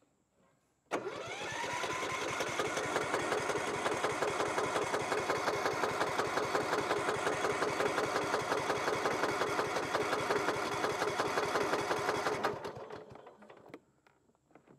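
Kohler engine of a Cub Cadet riding mower being cranked by its electric starter for about eleven seconds, with an even rapid chugging and a whine that rises as the starter spins up about a second in, then winding down when the key is released. The engine does not catch; the owner suspects it needs a little priming.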